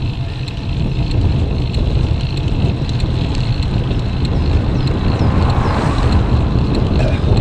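Wind buffeting a bike-mounted camera's microphone: a loud, steady low rumble. An oncoming car passes about two-thirds of the way through, adding a brief swell of tyre and engine noise.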